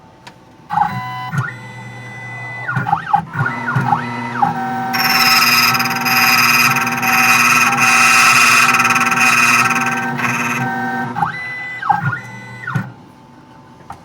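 Silca computerised key-cutting machine cutting a steel-case key by code. Its stepper motors whine up and down in pitch as the carriage positions the blank, then the cutter grinds through the blade for about five seconds in the middle. The motors whine again as the carriage returns, and it stops about a second before the end.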